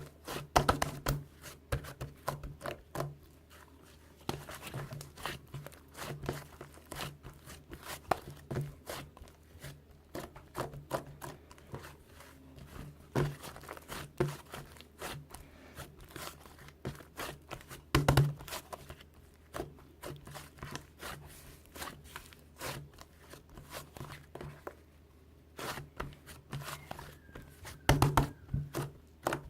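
Irregular close-up handling noises: crinkling and tearing of paper or plastic, with many small clicks and taps and a few louder knocks, over a faint steady low hum.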